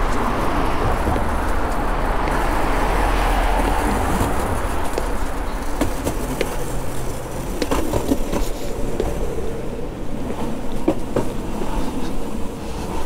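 Small hard board wheels rolling over sidewalk paving: a steady rolling rumble that eases about four seconds in, with a run of sharp clicks in the second half.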